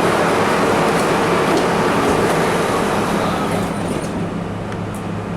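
An R32 subway car running, heard from inside: a loud, steady rumble with a constant low hum under it, the rumble easing about three and a half seconds in.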